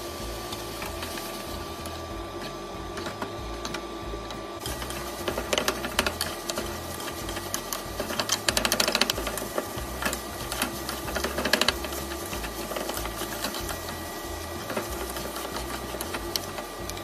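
Wooden spatula scraping and knocking against a frying pan while kimchi fried rice is stirred and tossed: quick irregular strokes that come in louder clusters through the middle. A steady hum runs underneath.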